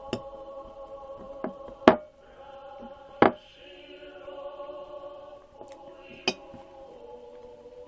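Sustained choral singing as background music, with a metal fork clinking sharply against a ceramic plate, three loud clinks and a few lighter taps.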